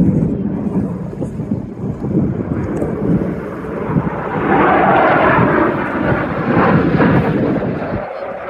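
USAF Thunderbirds F-16 fighter jets flying over in a four-ship formation: a rumbling jet roar that swells about halfway through and eases off near the end.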